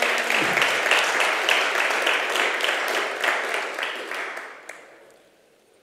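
Audience applauding, the clapping thinning and dying away to near silence over about five seconds.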